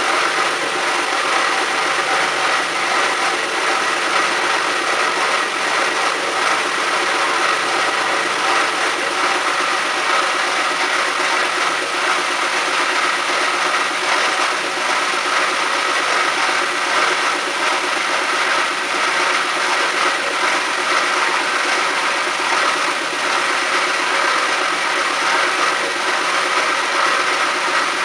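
CORMAK S-280R semi-automatic metal band saw running, an even mechanical whir with a few steady tones in it that holds level without a break.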